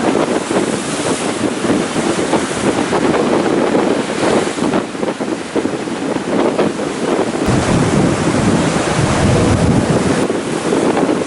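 Ocean surf breaking, swell from an approaching typhoon, with wind buffeting the microphone; the low wind rumble grows heavier about two-thirds of the way through.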